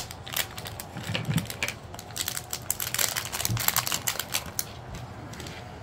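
Clear plastic packaging bag crinkling and crackling as hands open it, a rapid run of crackles that is thickest midway through.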